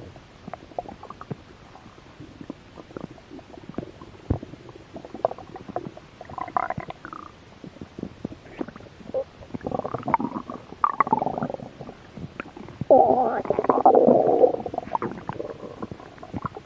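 Human stomach growling from hunger: many small gurgles and pops, with short rumbles about six and ten seconds in and the loudest, longest rumble about thirteen seconds in.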